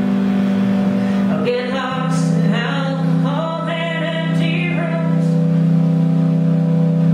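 Live country-rock band playing under held, sustained chords, with a woman singing lead into a microphone; her voice comes in about a second and a half in and carries for a few seconds.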